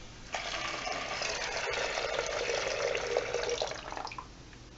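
Water heater's temperature and pressure relief valve lever pulled open, water rushing out through its discharge pipe for about four seconds, then cut off as the lever is let go: the valve is being exercised to flush out debris and mineral deposits.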